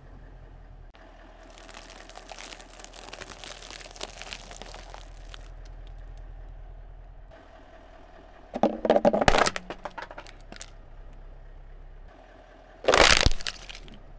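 A car tyre rolls over and crushes a lidded plastic food container, which cracks and shatters in two loud bursts of crunching a few seconds apart in the second half. Before that comes a few seconds of softer crackling and crunching.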